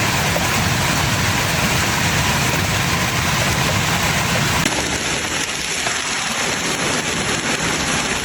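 Hailstorm: hailstones pelting down in a dense, steady hiss with a heavy low rumble, which cuts abruptly about halfway through to a thinner hiss of falling hail without the rumble.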